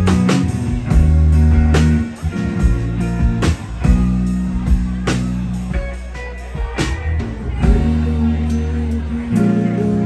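Live rock trio playing: electric guitar, electric bass and drum kit, with held bass notes and drum hits.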